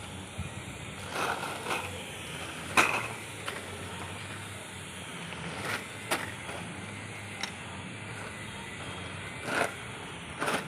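Scattered clicks and knocks over a steady low hum, the sharpest knock about three seconds in.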